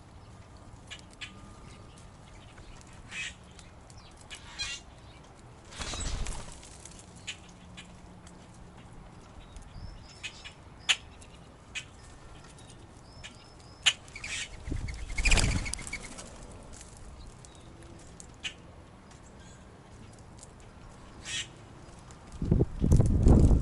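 Birds' wings flapping in short whooshing bursts, about six seconds in and again about fifteen seconds in, with a louder burst near the end. Scattered sharp clicks and a few short, high chirps come between them.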